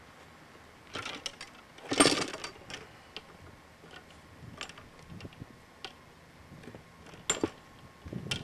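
Scattered light clicks and rustles, the loudest a short burst about two seconds in. Right at the end, a golf club strikes a teed ball in a drive.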